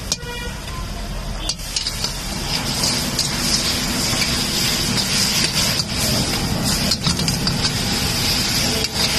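A perforated metal ladle scraping and stirring samosa and kachori chaat in a large metal kadai, with short clinks of the ladle on the pan and a sizzling hiss that grows stronger a few seconds in. A steady low rumble runs underneath.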